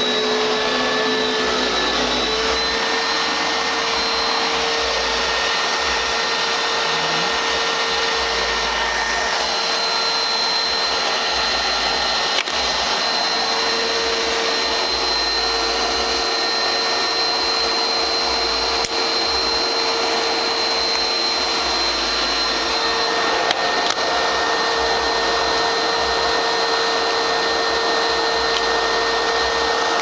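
Hoover Platinum Collection cyclonic bagless upright vacuum cleaner running: a steady motor hum with a rush of air. Some of its lower notes drop out about two seconds in, and a few light knocks come over it.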